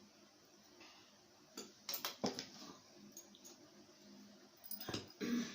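A few light clicks and knocks of tableware during a meal, over quiet room tone: a couple about two seconds in and a louder cluster near the end.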